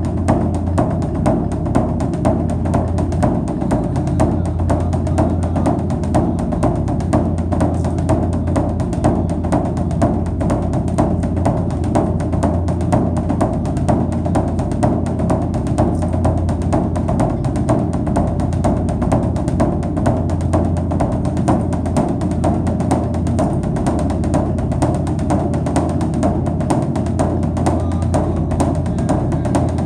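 Background music led by drums, with a steady beat.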